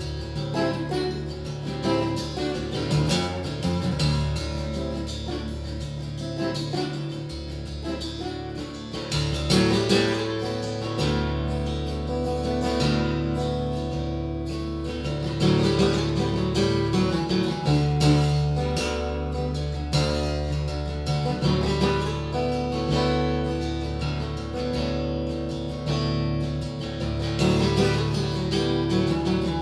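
Solo steel-string acoustic guitar played live, picked and strummed, with low bass notes ringing underneath.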